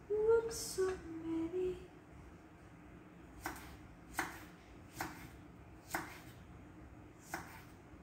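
A brief wordless vocal sound at the start, then a knife cutting tomato slices against a wooden cutting board: five sharp chops, roughly a second apart.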